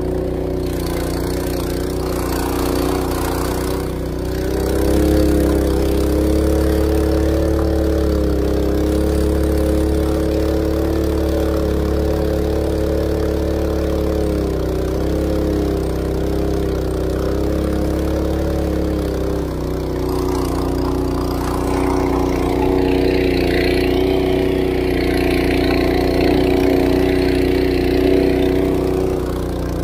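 Honda GX200 single-cylinder four-stroke engine driving a ketinting long-tail propeller, running steadily under way with the boat at speed. Its note wavers slightly and gets a little louder about five seconds in, and a hissing rush joins it a few seconds before the end.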